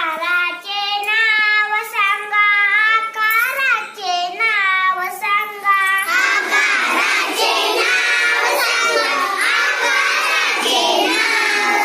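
A young girl sings a line alone, then about six seconds in a group of young girls joins in and sings together, unaccompanied.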